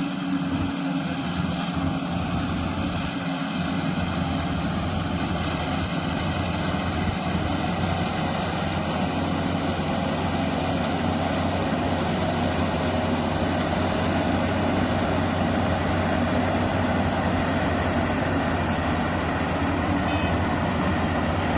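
Goose GS1028E rice combine harvester running steadily: a constant engine hum with the machine's steady whir over it, even throughout.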